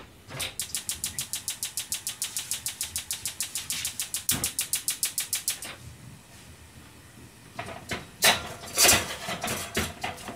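Rapid, even clicking, about eight clicks a second for some five seconds, then a lull and a few louder clatters near the end.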